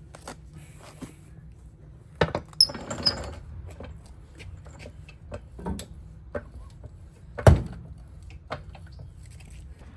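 Scattered knocks, clicks and a brief scrape from handling tools and tire parts, with one loud knock about seven and a half seconds in, over a low steady hum.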